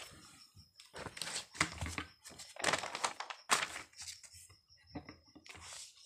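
Paper rustling in several short bursts as notebook pages are handled and turned.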